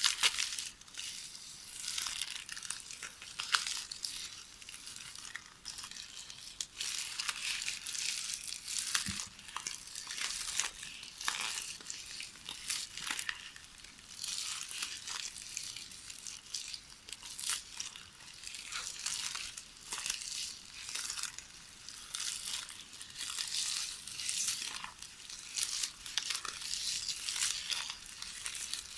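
Magnetic VHS videotape rustling and crackling as it is knitted by hand: a dense crackle of small crinkles that swells and fades about once a second with each movement of the hands.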